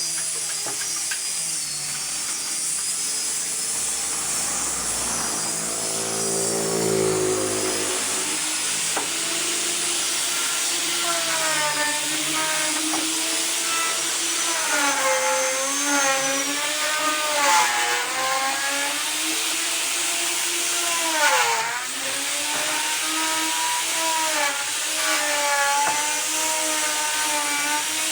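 Electric power saw cutting wood, its motor whine dipping in pitch and recovering again and again as the blade loads up in the cut.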